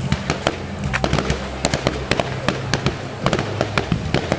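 Fireworks display: a rapid, irregular run of sharp bangs and crackles, several a second, over a steady low hum.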